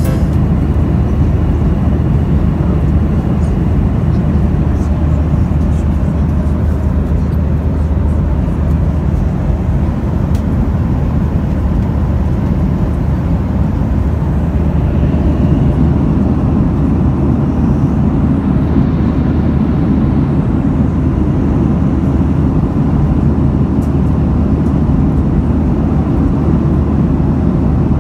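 Steady low cabin drone of a Boeing 737-800 in flight: engine and airflow noise heard from a passenger seat, even and unchanging throughout.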